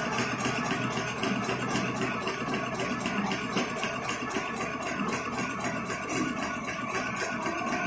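Automatic agarbatti (incense stick) making machine running, a rapid, even mechanical clatter as it coats bamboo sticks with paste and drops the finished sticks onto its steel tray.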